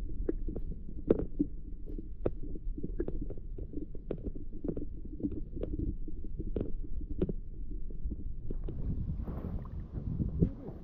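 Muffled underwater sound picked up by a submerged camera in a cold lake: a low rumble with irregular ticks and knocks. About eight seconds in it opens up to open-air water noise as a perch is swung out of the water beside a kayak.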